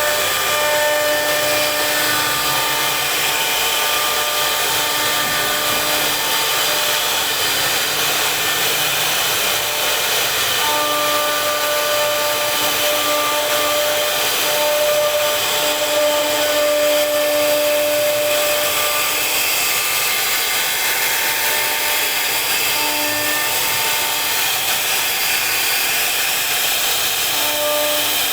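CNC router spindle cutting into wood, a steady, loud whirring noise with a pitched whine that drops out and comes back several times.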